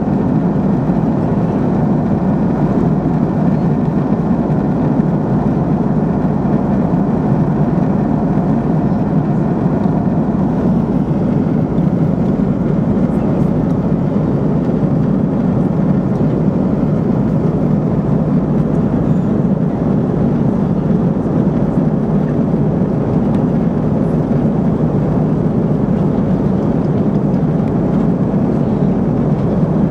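Steady, loud cabin noise of a jet airliner in flight: engine and airflow rush heard from inside the cabin, even and unchanging, with most of its weight low in pitch.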